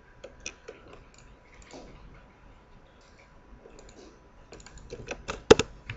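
Scattered clicks of a computer mouse and keyboard during desktop work. The clicks are sparse at first, then come in a quick run near the end with one louder click.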